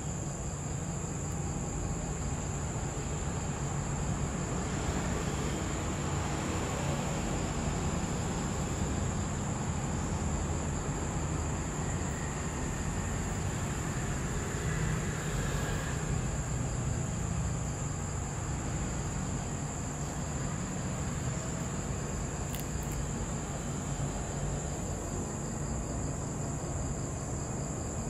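Insects trilling in one steady, unbroken high note, over a low, steady rumble.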